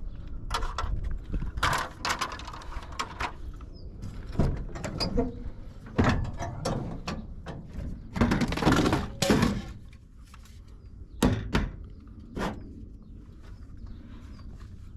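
Irregular knocks and clunks of things being handled, with a longer scraping rattle about eight seconds in.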